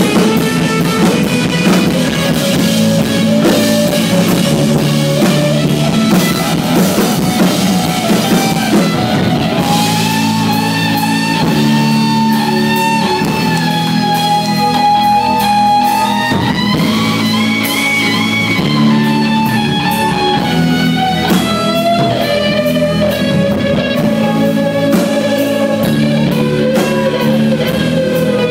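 Live rock band playing an instrumental passage: electric guitar, bass and drums, loud and steady. Partway through, a lead line holds long notes that bend slowly in pitch.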